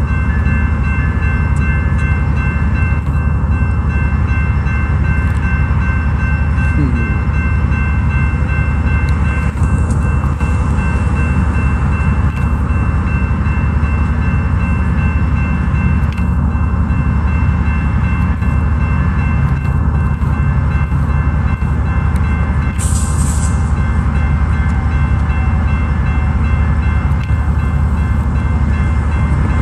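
Coaster commuter train's diesel locomotive running steadily: a deep, unbroken engine rumble with a few constant high whining tones over it, and a short hiss about two-thirds of the way in.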